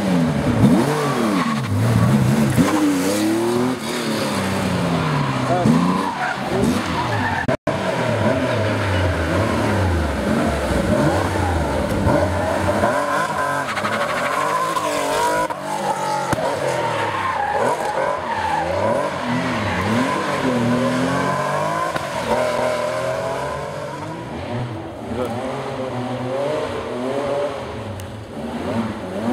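Porsche rally car engine revving hard, its pitch climbing and falling again and again through gear changes and lifts, with tyres skidding as the car drifts. There is a brief cut-out about a third of the way in.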